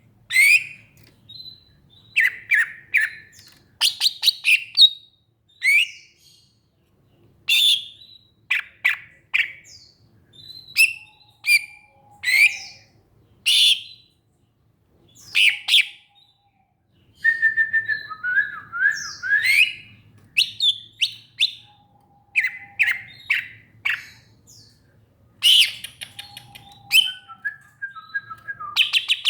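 Green leafbird (cucak ijo) singing: a varied run of sharp chirps, short whistles and sliding notes, delivered in quick clusters with short pauses between them.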